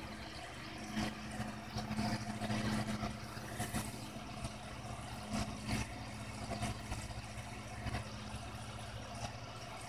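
A steady low hum, as from a small motor running, with a few soft knocks and clicks scattered through it.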